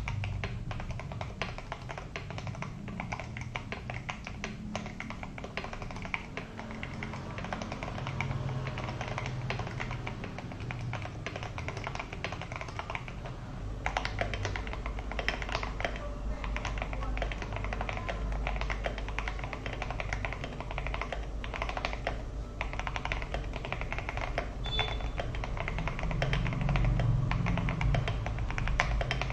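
Mechanical keyboard fitted with Akko Red & Blue Samurai PBT double-shot ASA-profile keycaps, typed on fast and continuously in a sound test: a dense stream of keystroke clacks. Music plays underneath.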